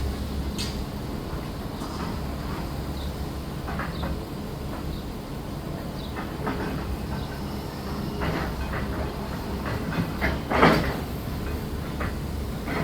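Building demolition work: heavy machinery running with a steady low rumble, with scattered knocks and clanks of debris and a louder crash about ten and a half seconds in.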